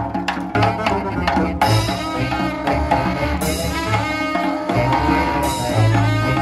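Small live traditional jazz band playing. A snare drum beats a steady rhythm over upright bass notes, and the saxophone and horns come in fuller about a second and a half in.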